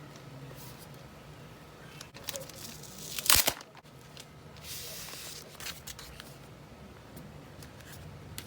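Paper and cardboard packaging being handled, rustling with small knocks, with one loud short rip a little over three seconds in.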